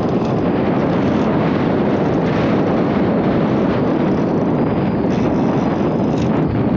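Steady loud rushing of wind buffeting the microphone on a moving boat, with no distinct engine note or knocks standing out.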